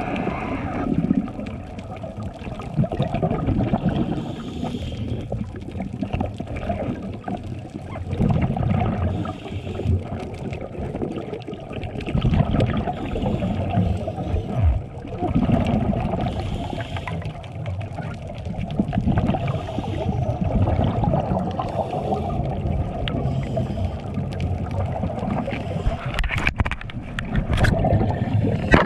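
Underwater sound of scuba breathing: regulator exhaust bubbles rush out in a swell every few seconds, with a few sharp clicks near the end.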